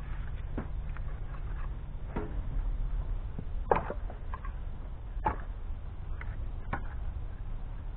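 Split firewood pieces being set down one by one on a woodpile: sharp knocks of wood on wood, about five of them, roughly one every second and a half, the loudest near the middle.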